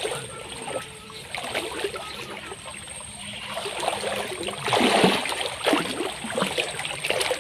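Shallow muddy water sloshing and splashing as men wade and drag a mesh net through it, with a louder splash about five seconds in.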